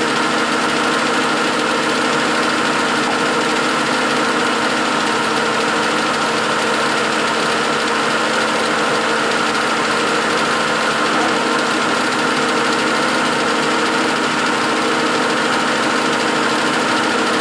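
1956 Herbert No. 4 capstan lathe running steadily under power: an even mechanical hum carrying several fixed tones, with no change in speed.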